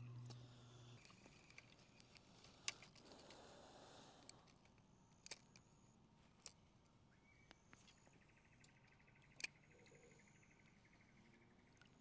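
Near silence: faint outdoor ambience with scattered small clicks and ticks, and a faint hum that stops about a second in.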